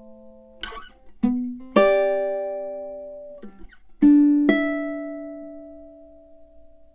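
All-Tasmanian-blackwood tenor ukulele with a low-G string, played as a few plucked notes and chords. Each is left to ring and slowly die away, and the last chord, about four seconds in, sustains to the end.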